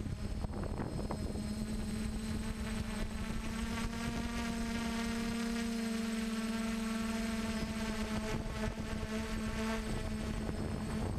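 Electric motors and propellers of a DJI F450 quadcopter humming steadily in flight, heard close from the camera mounted on the drone. It is one even, buzzing tone with a low rumble of air noise underneath.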